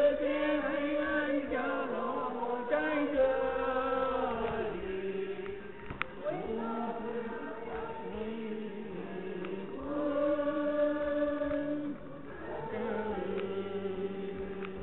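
Choral singing: several voices holding slow, long notes together, the pitch changing every second or two.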